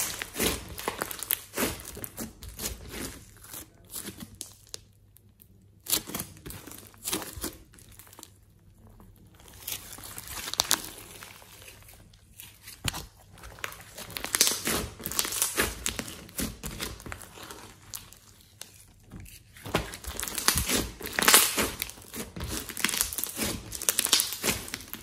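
Hands squishing, kneading and stretching a thick white slime mixed with small colourful bits, making crackly, sticky squelching and tearing sounds. They come in irregular bursts with short quiet pauses between handlings.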